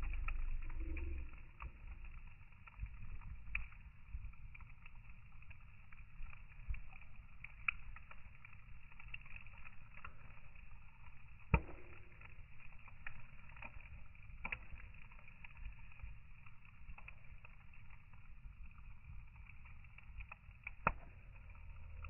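Wood fire burning in a fire pit, with a low rumble of flames and scattered crackles and pops from the logs. The rumble is louder for the first couple of seconds. Two sharp pops stand out, one about halfway and one near the end.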